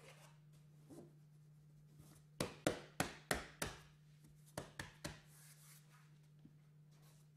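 Hands slapping a curved KERDI-BOARD foam panel down into wet thin-set mortar to bed it: five quick smacks, a short pause, then three more.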